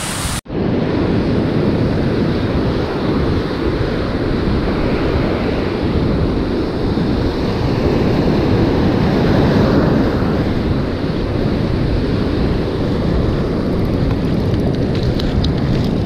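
Steady noise of surf breaking on a beach mixed with wind buffeting the microphone, with a brief drop-out about half a second in.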